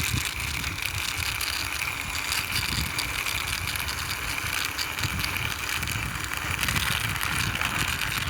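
Plastic toy truck pushed along by hand, its wheels rolling with a steady clicking rattle.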